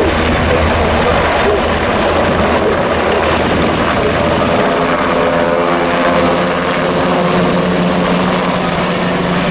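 UH-60 Black Hawk helicopter's rotors and twin turbine engines running loud and steady. From about halfway, a pitched drone comes through as the helicopter lifts off and flies by.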